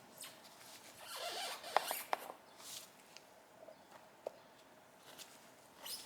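Faint hand-tool work on a motorcycle carburetor: a scraping rustle with two or three sharp squeaks about a second in, then a few scattered small clicks.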